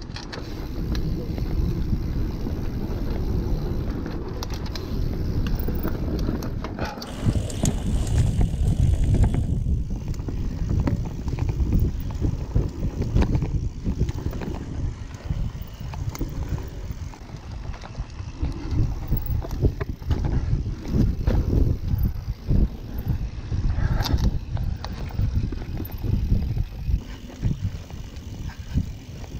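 Mountain bike riding fast down a dirt forest trail: tyres rumbling over the ground and wind buffeting the camera microphone, with frequent rattles and knocks as the bike goes over bumps.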